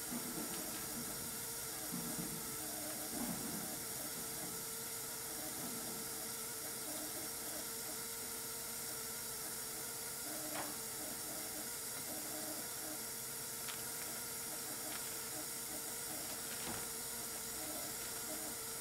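Steady, gentle hiss of CO2 gas venting while a multi-layer foil sample bag is pressed to purge it of CO2, with a few faint clicks from the bag and fitting.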